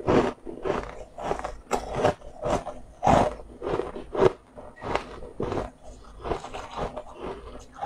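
A person chewing a crunchy mouthful, crunching again and again about twice a second.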